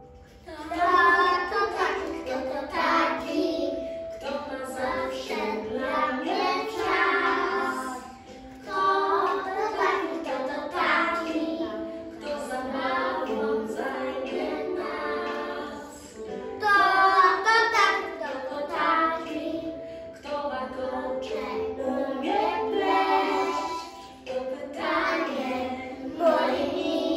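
A small group of young children singing a song together, starting about a second in, line after line with short pauses between phrases.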